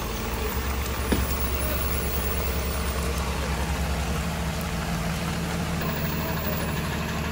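Heavily loaded Tata lorry's diesel engine running steadily at low revs, under the steady hiss of rain. A single sharp knock comes about a second in.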